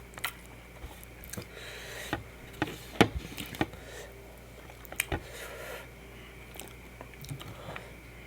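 Close-miked eating sounds: wet chewing and mouth smacks with scattered sharp clicks, the loudest about three and five seconds in.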